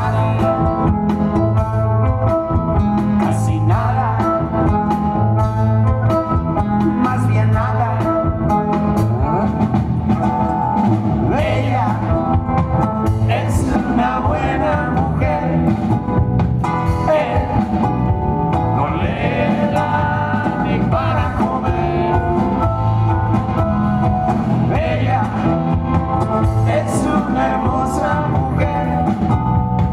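Live band playing a song: a singer's voice over acoustic guitar, electric bass and keyboards, heard through the hall's PA.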